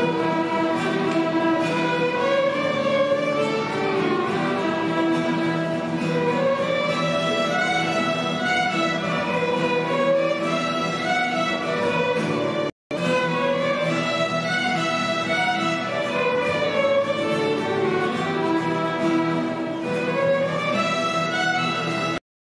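A small student ensemble of violins with guitar accompaniment plays a melodic tune together. The sound cuts out for an instant about halfway through and again at the very end.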